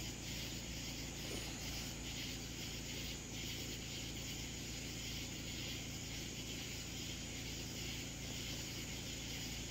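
Steady outdoor night ambience: a constant high chirring of insects, with a low steady hum underneath.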